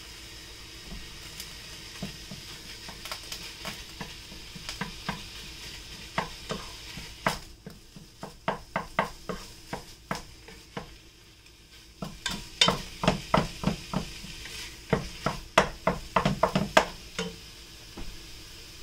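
Wooden spatula stirring ground meat in a pot, in runs of quick knocks and scrapes that are busiest in the second half, over a steady sizzle of the meat browning.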